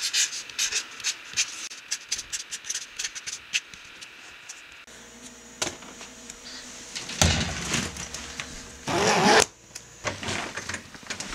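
Felt-tip marker scratching and squeaking on corrugated cardboard in a quick run of short strokes as letters are written. About five seconds in it gives way to louder, irregular rustling and scraping handling noises, the loudest a few seconds later.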